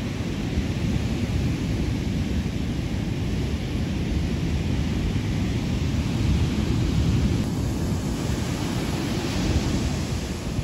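Ocean surf breaking and washing up a sandy beach, with wind buffeting the microphone as a steady low rumble.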